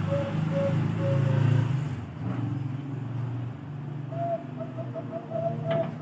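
Zebra dove (perkutut, Bangkok strain) cooing: a run of short, evenly spaced coos, about three a second, that fade out in the first second and a half, then after a pause a longer coo breaking into a quick trill near the end. A low rumble sits underneath, loudest in the first two seconds.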